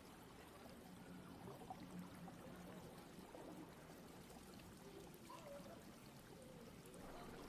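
Faint, steady trickle of running water in an aquarium.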